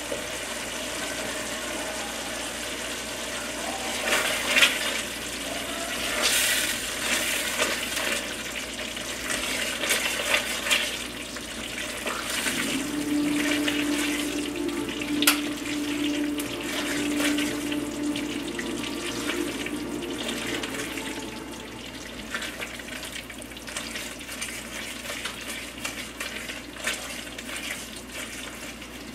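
Thick tomato-based stew base simmering and popping in a stainless steel pan on low heat, with a spatula stirring and scraping through it. A steady hum joins in for several seconds around the middle.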